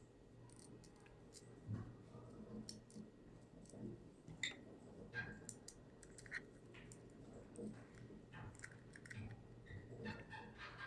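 Faint, irregular light clicks and taps of small screws and parts being handled while an M.2 adapter module is fixed in place with a small screw.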